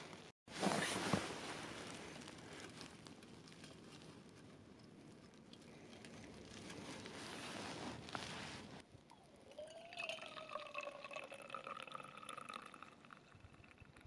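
Liquid pouring and trickling, loudest just after a brief dropout near the start, then fading. Near the end a faint whistling tone with a few higher tones comes in, dipping slightly in pitch.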